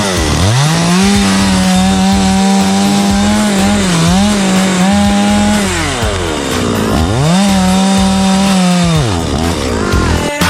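Two-stroke chainsaw revved up to full throttle and held there, with a brief dip about four seconds in. It falls back to idle around six seconds, then revs up again for a couple of seconds before dropping off near the end.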